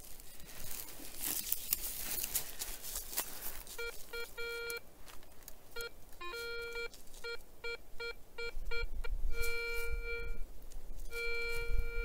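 Garrett ACE 250 metal detector beeping over a buried target. A series of short beeps on one steady tone comes first, with a brief lower tone among them, then two longer held tones near the end. The detectorist reads it as a puzzling, unidentified signal.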